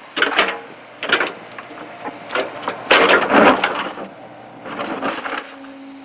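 Compact excavator bucket digging a trench, with about five bursts of crunching and scraping as it tears through soil and clods, the longest and loudest about three seconds in. The excavator's engine runs steadily underneath.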